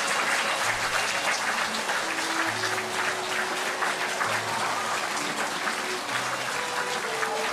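A large audience applauding steadily, with slow instrumental music underneath holding long notes.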